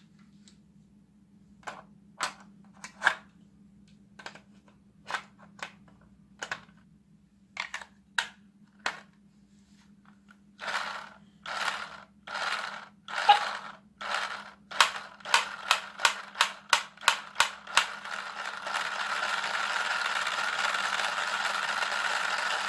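Battery-powered toy gun. First come scattered single clicks, then short bursts of its electronic shooting sound effect that come faster and faster, and for the last few seconds one continuous run of the effect. A faint steady low hum runs underneath.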